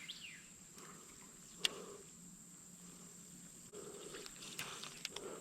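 Steady high-pitched drone of insects. A short falling whistle comes right at the start, and a few sharp clicks follow, the clearest about a second and a half in.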